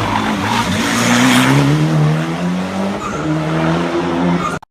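Hillclimb race car engine accelerating hard out of a corner, its pitch climbing, dropping briefly about three seconds in as it shifts gear, then climbing again, with tyre noise underneath. The sound cuts off suddenly near the end.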